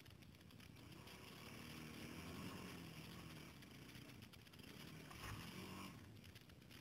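Faint, distant engine of an off-road quad or dirt bike revving up and down in two swells.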